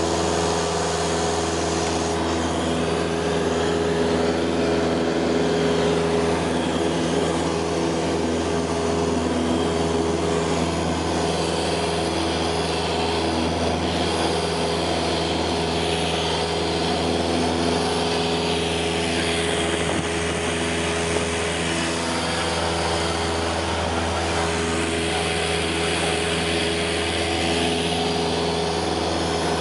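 Cessna 172's piston engine and propeller droning steadily in the cabin, with a constant low hum under a rushing noise, as the plane climbs after takeoff.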